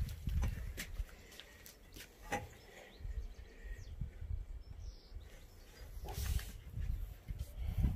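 Light knocks and scrapes of powder-coated steel hammock-stand tubes being slid together into a joint, a few separate clicks over a low rumble.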